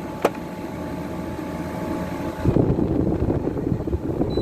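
12,000 BTU Frigidaire window air conditioner running with a steady hum. There is one sharp click just after the start. About halfway through, a louder, rough, fluctuating rumble sets in.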